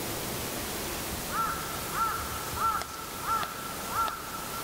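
An animal calling in a regular series, five short arched calls about two-thirds of a second apart starting a second and a half in, over a steady hiss.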